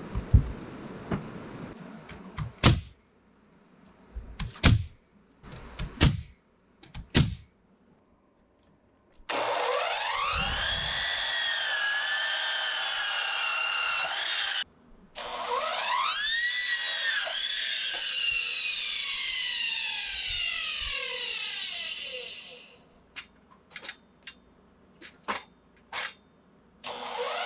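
Sharp knocks, then an electric power tool's motor spinning up with a rising whine, running about five seconds, stopping briefly, and running again for about seven seconds before winding down with falling pitch. More knocks follow, and the motor starts again at the very end.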